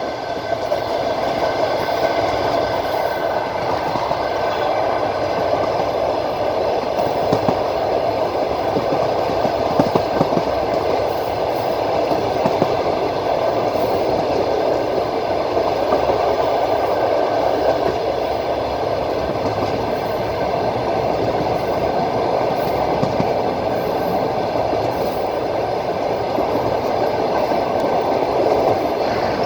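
Passenger train running at a steady speed, heard from inside the carriage: a steady rumble of wheels on rail, with a few faint clicks of the wheels over rail joints.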